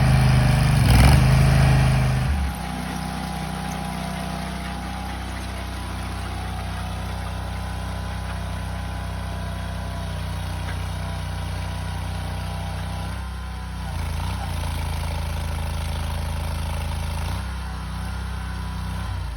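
Trencher engine running. It is louder for the first couple of seconds, then settles to a steady idle. The engine speed steps up about two-thirds of the way through and drops back a few seconds later.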